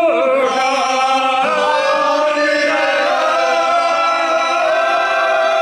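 A group of young men singing loudly together, settling into a long held note about halfway through.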